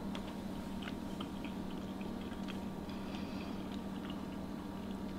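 A person chewing a bite of Salisbury steak in gravy: faint, scattered small mouth clicks over a steady low hum.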